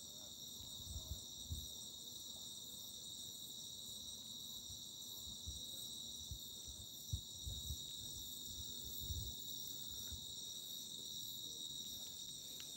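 Crickets chirring steadily, a high unbroken shimmer, with faint low thumps scattered through it.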